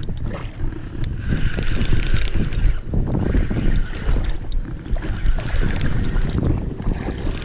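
Heavy wind buffeting the camera's built-in microphone as a low rumble, with clicks and whirring from a Penn spinning reel being cranked against a hooked fish.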